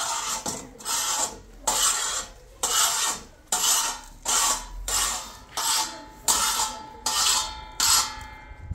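Metal spatula scraping and turning wheat grains across a hot metal griddle as they dry-roast, a rasping sweep with the grains hissing against the metal. The strokes come in a steady rhythm, a little more than one a second.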